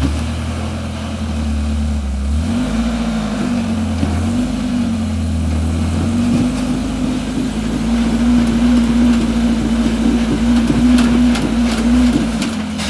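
Rock crawler buggy's engine revving under load as it climbs a steep rock wall, the pitch rising in short pushes at first and then held higher and louder. A few sharp clicks come near the end.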